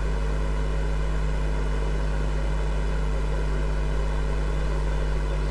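Steady low electrical hum with a few constant low tones and an even hiss over it, unchanging.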